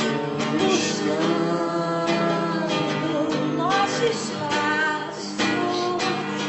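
A woman singing a slow melody, her voice gliding between notes, to a strummed acoustic guitar.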